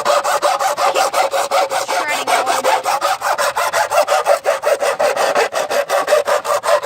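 Rapid back-and-forth hand filing, about seven rasping strokes a second, trimming down a part of a Sharp air conditioner so that the blower wheel no longer scrapes against it.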